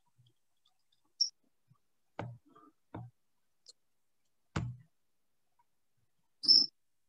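Computer mouse clicking a few times, with two short high-pitched chirps, one about a second in and a louder one near the end.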